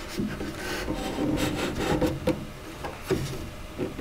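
Cedar bench panel sliding and scraping over the sandbox's wooden top boards as it is shifted into place, with a few light wooden knocks in the second half.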